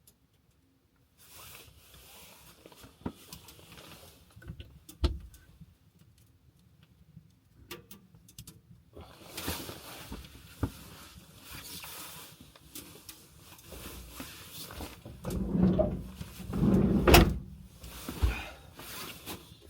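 Things being handled: scattered clicks and knocks, then from about halfway through a run of scraping or rustling with more knocks. It is loudest a couple of seconds before the end.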